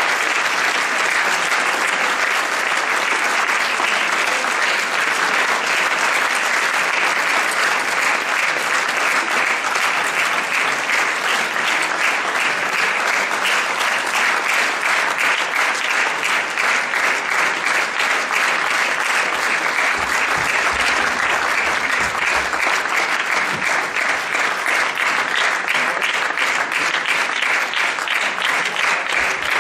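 Theatre audience applauding, a dense, steady clapping that keeps up without a break.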